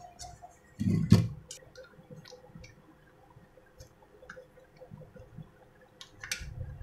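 Knocks and clicks of a clothes iron's plastic handle and body being handled on a wooden workbench, with the loudest knock about a second in and a few more clicks near the end.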